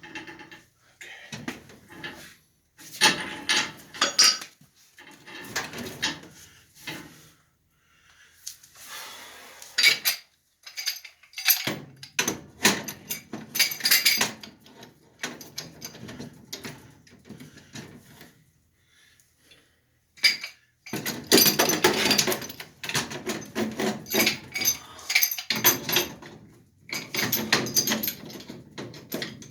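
Irregular clanking and rattling of metal: tools and sheet-metal furnace parts being handled, in bursts separated by short pauses.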